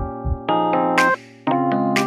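Background music: electric piano or keyboard chords played in short rhythmic stabs over a beat, with a cymbal crash about a second in and again near the end.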